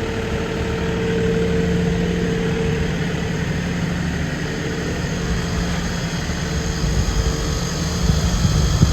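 Airoswim multipurpose heat pump running: a steady mechanical hum with low steady tones from its scroll compressor and fan. Near the end an uneven low rumble is added.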